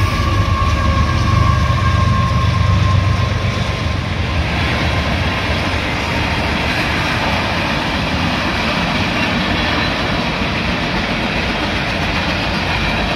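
A Union Pacific diesel freight locomotive passes with a low engine rumble and a steady whine, which fade after about four seconds. It gives way to the even rolling noise of tank cars and a covered hopper on steel rails.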